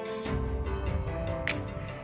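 Background music: a melody of held notes with an occasional sharp percussive hit.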